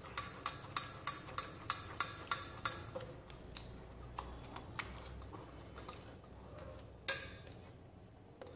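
Steel mesh strainer clicking against a steel bowl while tamarind pulp is rubbed through it by hand: a steady rhythm of about three clicks a second that thins out after about three seconds, with one louder knock near the end.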